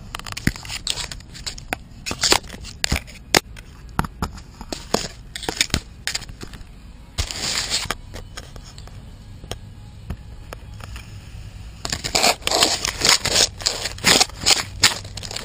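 Dry twigs and branches scraping and cracking right against the microphone as someone pushes through dense brush: many sharp cracks and scratches, with a dense crackling stretch about seven seconds in and another from about twelve seconds on.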